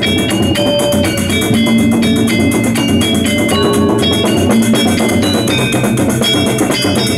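Balinese gamelan gong kebyar music: metallophones play quick, ringing note figures over drums, several struck notes a second.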